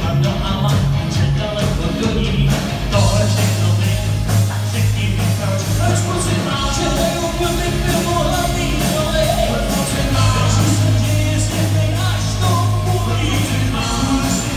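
Live rock band playing: electric guitars, bass guitar, drums and keyboards with a male singer, sung in Czech, with a steady drum beat and held bass notes.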